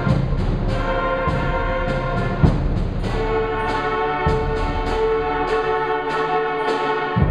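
Junior high concert band playing, with brass and saxophones holding chords over percussion. Quick crisp percussion strokes run throughout, and heavy drum hits come about two and a half seconds in and again a little after four seconds.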